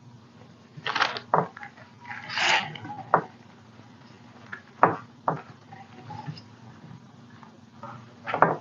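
Several light taps and knocks with a brief rustle, from a water brush pen and craft materials being handled while the pen isn't releasing water.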